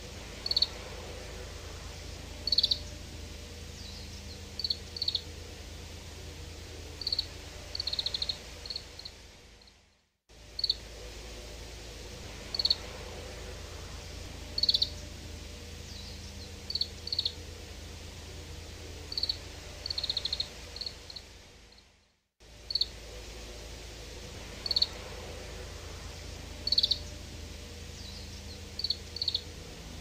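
Oriental greenfinch calls: short high chirps and a few quick twittering runs over a low steady background noise. The same call recording is looped, fading out and starting again twice.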